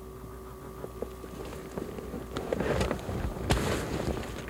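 Rustling and clatter of hunters moving in a brush blind as they shoot at a goose with longbows, starting about halfway through, with one sharp crack about three and a half seconds in.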